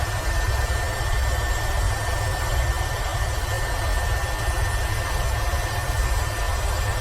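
Airbus H130 (EcoStar) helicopter in steady flight: continuous turbine and rotor noise with a deep rumble and a thin, steady high whine.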